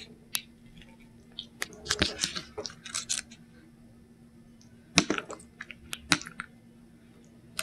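A spoon scooping guacamole from a plastic tub and spreading it onto a plate of tortilla chips: scattered light clicks and scrapes, bunched about two seconds in and again around five and six seconds, over a faint steady hum.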